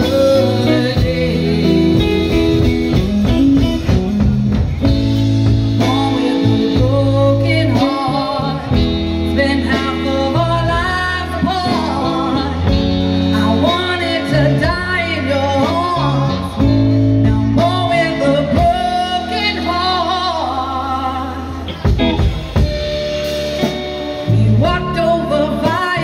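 Live band playing a song: a woman singing over electric guitar, electric bass and drum kit.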